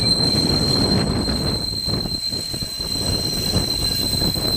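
SEPTA Broad Street Line subway train rounding a tight loop curve, its wheels squealing against the rails in a steady high tone over the low rumble of the cars passing close by.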